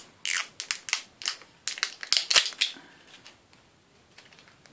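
Sharp plastic clicks and crackles from the sealed cap of a small Bath & Body Works Wallflowers fragrance refill bottle being twisted and pried at to break its seal: a quick run of them over the first three seconds, loudest a little past two seconds in, then a few faint ticks.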